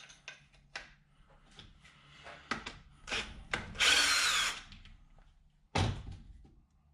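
Metal tools clinking and knocking as they are rummaged through, with a loud rasping burst of under a second a little before the middle and a single heavy thump near the end.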